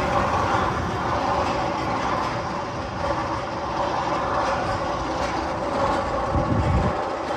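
Roller coaster train running along its steel track: a steady rumble with a rail-like clatter.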